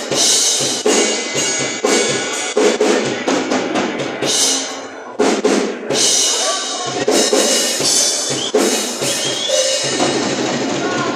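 Drum kit being played: a busy run of drum hits with cymbals ringing over them throughout.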